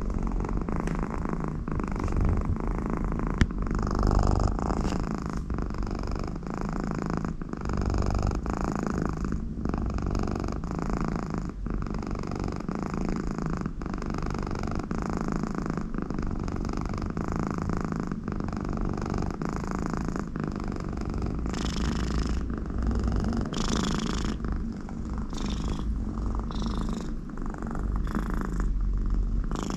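American Shorthair cat purring loudly and continuously, the purr pausing briefly between breaths. On some breaths, mostly in the second half, there is a breathy snore-like sound through the nose, the sign of a very contented cat.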